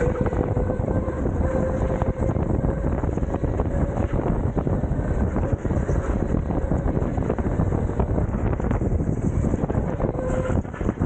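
Electric rental go-kart running at speed, heard from on board: a steady motor whine over a continuous low rumble and wind noise on the microphone. The whine dips briefly near the end.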